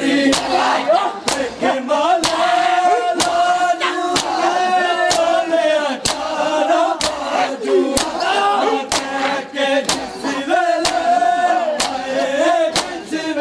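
A group of men chanting a noha together while beating their bare chests in matam, a sharp slap landing in time a little under once a second.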